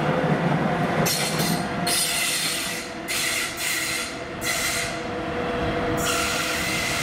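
Passing train of an NS Class 186 Traxx electric locomotive and ICRm coaches: a steady running rumble, then from about a second in the wheels squeal in repeated high screeching bursts as the train rounds a curve.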